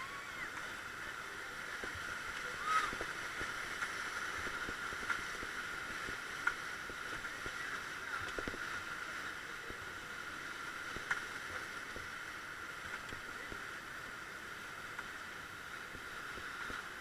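Steady, fairly faint rush of river rapids around an inflatable raft, with a few soft splashes or knocks.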